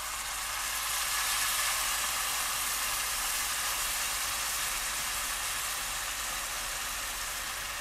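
Boiling water pouring in a steady stream into a hot pot of fish stew with fried herbs and tamarind, easing a little near the end.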